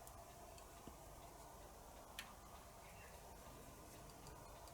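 Near silence: room tone with two faint small clicks, about a second apart.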